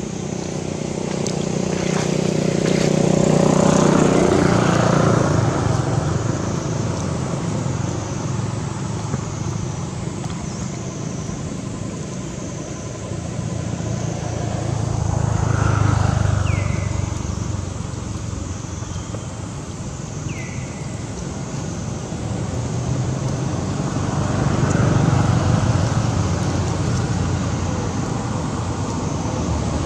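Motor vehicles passing on a nearby road, one after another. Each rumble swells and fades over several seconds, three times in all.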